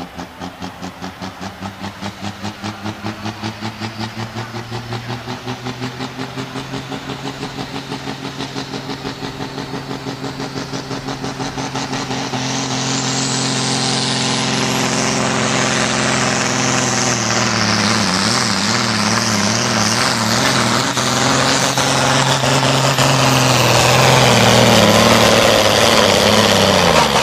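Turbocharged single-turbo production diesel engine of a 3.6-tonne Super Sport pulling tractor under full load hauling the brake sled. It pulses evenly at first, then about twelve seconds in grows louder with a rising hiss, and its pitch wavers and sags in the second half, which the commentator puts down to the boost collapsing a little toward the end of the pull.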